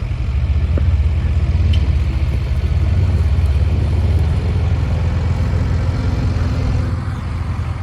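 Heavy engine running with a deep, steady rumble, easing a little near the end before cutting off suddenly.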